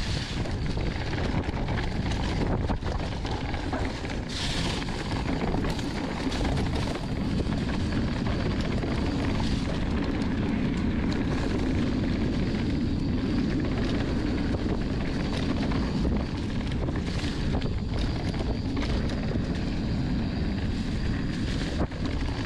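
Mountain bike descending a dirt trail at speed: wind rushing over the microphone and tyres rolling over dirt and rocks, with frequent rattles and knocks from the bike.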